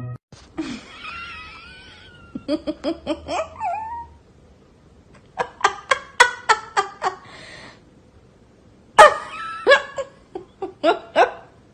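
People laughing in several bursts of quick, pitched 'ha-ha' pulses, loudest about three quarters of the way through. A wavering high-pitched sound comes near the start.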